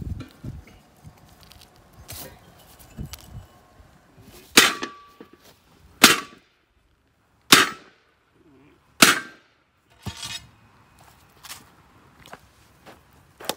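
Four sharp metal-on-metal hammer blows about a second and a half apart on the shaft assembly of an IH 480 disc harrow gang, the first with a short ring, and lighter clinks and taps of metal between them.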